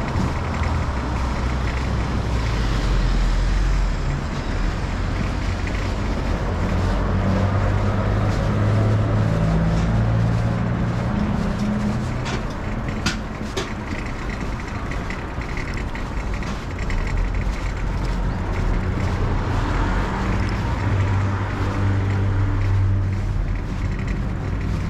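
City street traffic: cars and heavier vehicles such as buses and trucks passing and running, a steady wash of engine and tyre noise. The low engine hum swells about a third of the way in and again near the end, with one sharp click in the middle.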